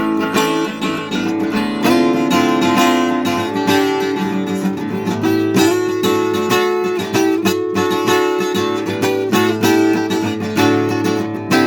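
Acoustic guitar playing an instrumental break, plucked and strummed notes and chords.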